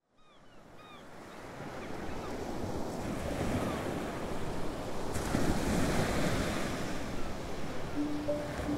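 Sea surf and wind noise fading in and building, with a few faint bird calls in the first second. A low sustained cello note enters near the end.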